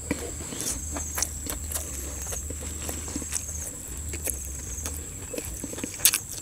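Close-miked eating of raw vegetables: chewing with irregular crunches and sharp clicks, and a louder pair of clicks about six seconds in. A steady thin high whine runs underneath.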